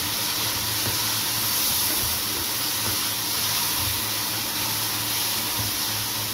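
Onion, tomato and spice masala in a wok hissing and sizzling steadily as the splash of water just poured in boils off into steam, while it is stirred with a spatula.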